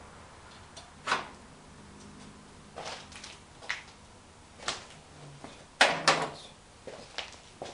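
Irregular sharp clicks and clunks of tools and parts being handled in a car's engine bay, about seven in all, the loudest a pair close together about six seconds in.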